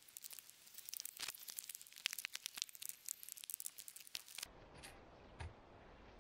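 Dense, irregular crackling and crinkling, like a plastic tarp rustling close by. After about four and a half seconds it gives way to a quieter bed with a couple of dull knocks of heavy stones being set in place.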